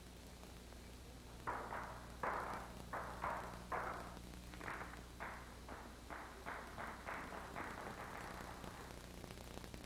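A run of about fifteen light knocks at uneven spacing, roughly two a second, each with a short fading tail, over the steady hum of an old film soundtrack.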